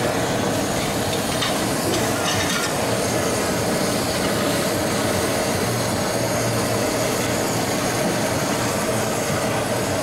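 Handheld gas torch flame running steadily as it sears slices of raw fish on a hot griddle.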